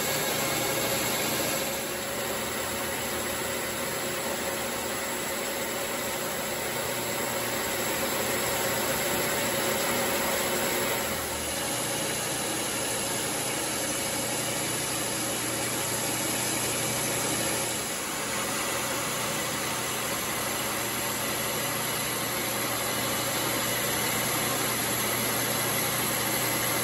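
Logan 922 metal lathe running steadily with the spindle turning while its tool takes a roughing cut along a shaft: a constant motor and drive hum with a faint cutting hiss, shifting slightly in level a few times.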